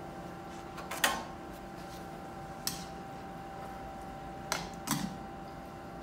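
Metal tongs clinking against a skillet and plate while stir-fried beef is served out: four sharp clinks, the last two close together, over a steady low hum.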